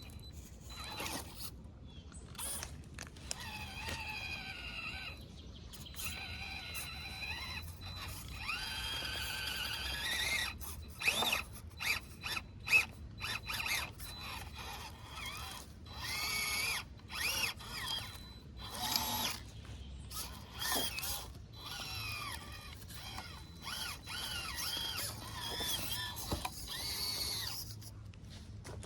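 Small electric motor and gearbox of a 1/18-scale FMS FCX18 Chevrolet K10 RC crawler whining in short stop-start bursts, the pitch rising and falling with the throttle.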